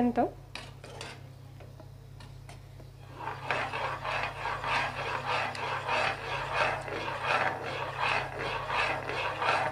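Metal ladle stirring and scraping round a kadhai of thickening milk and butterscotch powder, kept moving so it blends smoothly. Light at first, then from about three seconds in a steady rhythm of scraping strokes.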